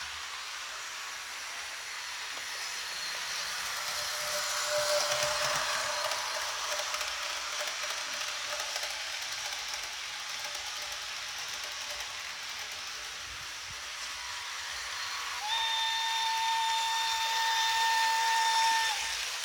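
Märklin model locomotive's sound decoder playing through its small speaker: a steady hissing running sound that swells for a few seconds, then one long, steady horn blast starting about three-quarters of the way in and lasting about three and a half seconds.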